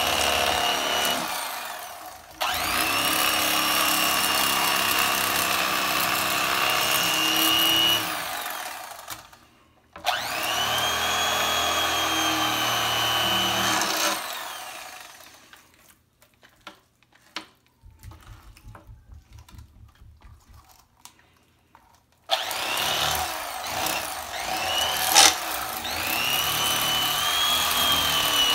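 Electric fillet knife cutting fish fillets, its motor whining in four runs that each climb in pitch as the motor spins up, then hold steady and stop. A gap of several seconds past the middle holds only faint clicks and handling noise before the knife starts again.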